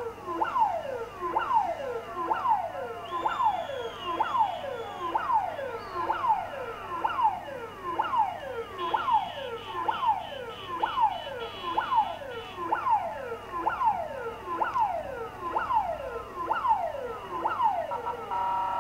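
Police vehicle siren sounding a repeated falling tone, about one downward sweep a second, heard through a television's speaker.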